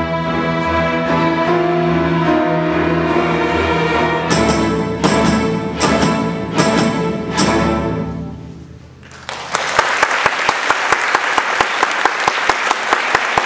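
String orchestra playing sustained chords, then five loud accented hits about a second apart that ring out and fade: the closing bars of the piece. About two thirds of the way in, audience applause breaks out and carries on.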